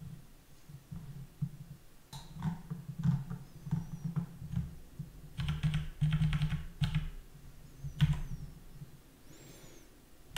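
Computer keyboard typing: scattered keystrokes, with a quick run of keys about halfway through.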